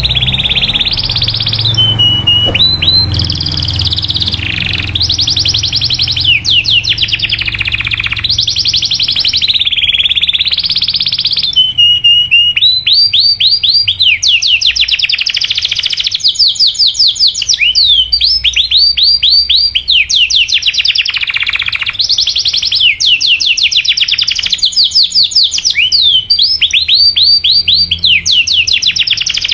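Domestic canary singing a loud, continuous song of rapid rolling trills, each made of fast repeated falling chirps, shifting from one trill to the next every second or two.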